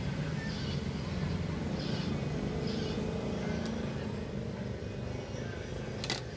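Steady low rumble of street traffic with faint voices, and a single sharp click about six seconds in.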